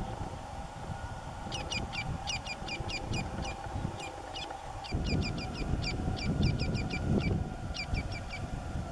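Woodpecker calling: runs of short, sharp, high notes repeated several times a second, starting about a second and a half in and continuing with brief gaps.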